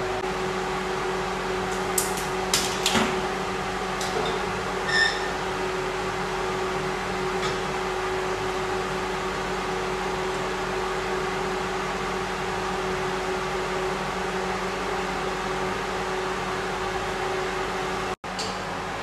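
Steady electric hum of a window-mounted fan, with a few light clicks and taps about two to three seconds in and a brief squeak about five seconds in. The sound cuts out for an instant near the end.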